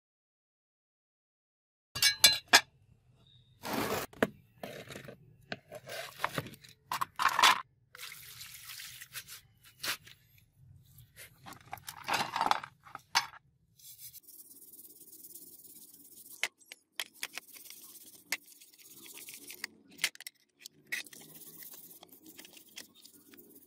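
Sharp clinks and knocks as the rusty hand-forged iron cleaver blade and its tang are handled and set down on a plastic tray. About halfway through this changes to the steady scratchy rasp of a hand-held steel wire brush scrubbing rust off the blade, in repeated strokes.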